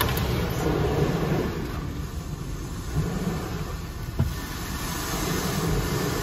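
High-pressure water jets of a Ryko Radius HT touchless car wash spraying down onto the car, a steady loud rush of water on the roof and windshield heard from inside the car. A single short knock about four seconds in.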